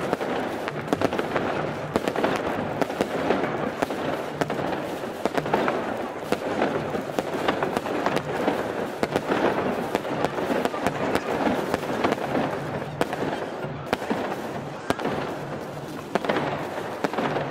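Aerial fireworks going off in a dense, continuous crackle: many small sharp pops, one on top of the other, from golden crackling bursts.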